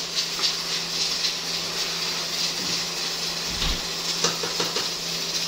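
Bitter gourd (karela) slices deep-frying in hot oil in a karahi, a steady sizzle, with a few light clinks of a metal slotted spoon against the pan about four seconds in.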